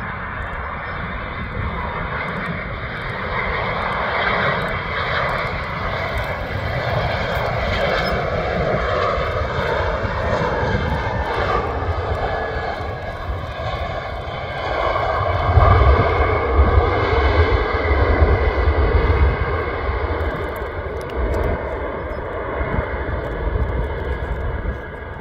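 Airbus A319 airliner's CFM56 jet engines on landing: a steady jet rumble and whine through the approach and touchdown. It grows louder and deeper about fifteen seconds in, as the plane rolls out along the runway.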